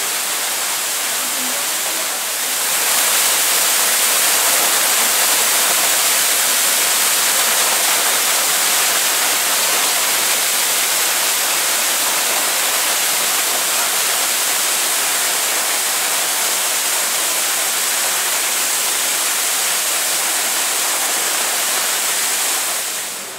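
Steady rushing water, as from a waterfall, a loud even hiss without any rhythm. It grows louder about two and a half seconds in and drops away sharply near the end.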